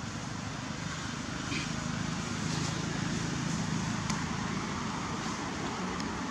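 Steady low outdoor rumble that swells a little in the middle, with a few faint clicks.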